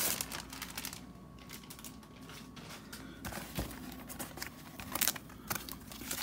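Packaging being handled: a plastic mailer crinkling and a cardboard mailer sliding and tapping, in scattered rustles and light knocks, busiest about five seconds in.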